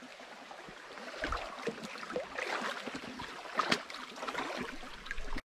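Small, shallow rocky creek trickling and babbling, with scattered faint crackles on top.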